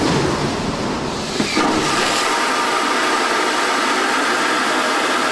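Airbus A380 vacuum toilet system flushing on a test rig: air and waste are sucked at high speed through the long pipe towards the vacuum waste tank, making a loud, steady rushing noise. A low rumble drops away about a second and a half in, leaving a higher hissing rush.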